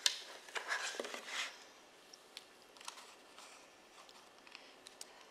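Faint rustling and crunching of crumbly oat-and-butter topping being broken up by hand and dropped over the filling, mostly in the first second and a half, then a few light ticks.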